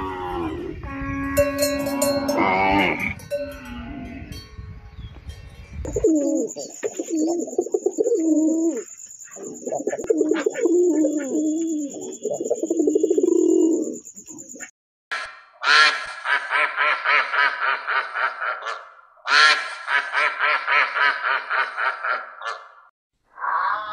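Cattle lowing over a low rumble for the first six seconds. Then rock pigeons cooing in low, rolling phrases. Then a duck quacking in two long, rapid runs.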